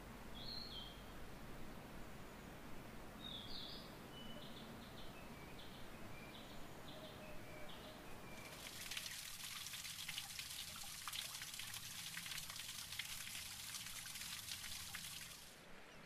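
A small bird chirping, two longer calls followed by a run of short, evenly spaced notes. About halfway through, a steady hiss of trickling, splashing water comes in suddenly, drowns the birds and cuts off just before the end.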